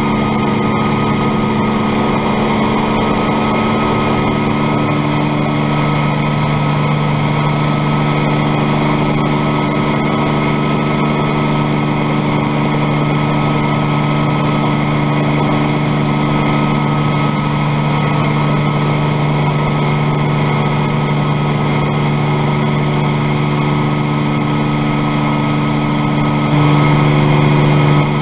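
Bell 47 helicopter's piston engine and rotor running with a steady drone. It grows a little louder near the end.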